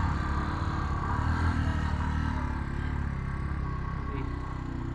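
Motorcycle engine running steadily as the bike rides along.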